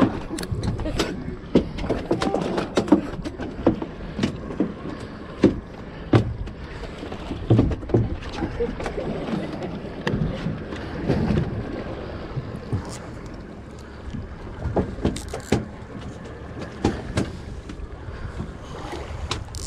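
Water slapping and sloshing against the hull of a drifting Robalo Cayman 226 bay boat, with frequent short knocks and clicks scattered throughout.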